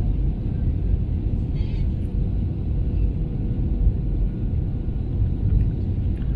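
Steady low rumble of airliner cabin noise inside an Airbus A320, from engines and airflow, with a faint steady hum over it.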